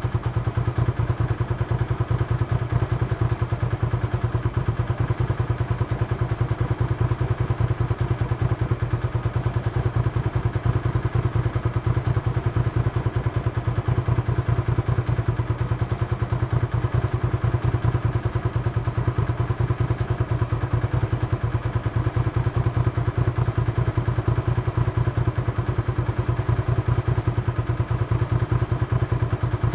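Hyosung GV650's V-twin engine idling steadily through its exhaust, with a fast, even pulsing beat.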